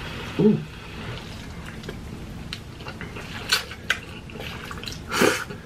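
Close-up eating sounds of spicy ramen noodles: wet slurping and chewing with lip smacks and a few sharp clicks, a short hum about half a second in and a louder burst near the end.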